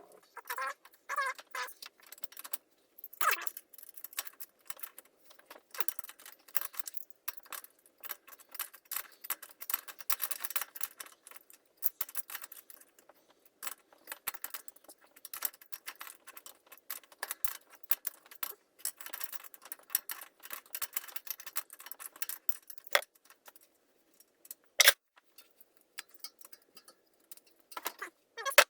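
Metal tools and bicycle parts clinking and rattling in many irregular small clicks, with a few sharper single knocks, as the handlebars and old threaded headset are taken apart.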